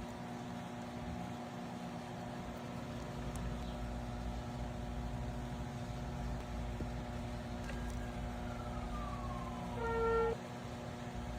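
A steady, even hum, like a small appliance or motor running. A tone glides downward over about two seconds, followed about ten seconds in by a short pitched beep, which is the loudest sound.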